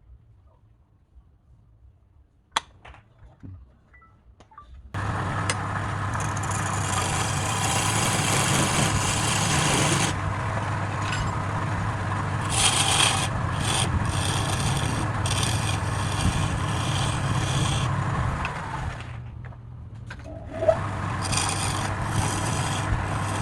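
Wood lathe running, its motor humming steadily, while a turning tool cuts into the spinning wood with a loud scraping hiss. It starts suddenly about five seconds in, after a near-quiet spell with a single click. Near the end it eases off briefly, there is a sharp click, and the cutting resumes.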